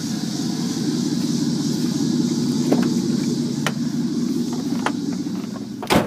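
A 2000 Chevy Silverado 1500's 4.8-litre V8 idling steadily through its aftermarket exhaust (2.5-inch X-pipe, Mustang tips). A few light clicks come over it, and a sharp knock near the end, after which the engine sounds much fainter.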